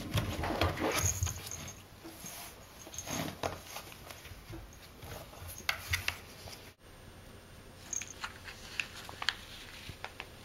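Kitten clawing and chewing at a corrugated cardboard scratcher: scratchy rustles and sharp clicks, loudest in the first second or two and again near six seconds. After an abrupt cut, only faint scattered ticks and crinkles remain.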